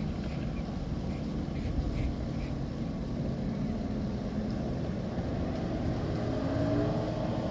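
Motorboat engine running steadily, with wind buffeting the microphone. Near the end a higher pitched tone rises and falls over it.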